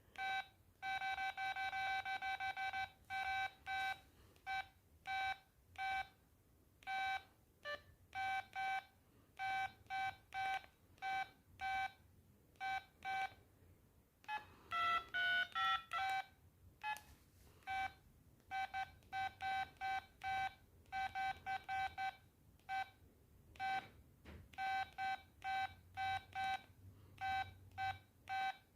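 LG MD5330 mobile phone playing a monophonic ringtone through its small speaker: short electronic beeps, mostly on one pitch in a quick, uneven rhythm, with a brief run of higher, changing notes about halfway through.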